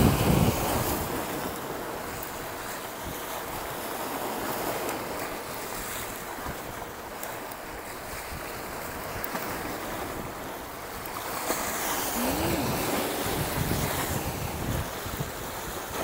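Strong wind blowing over the microphone, with sea surf washing on the shore, a steady rushing noise.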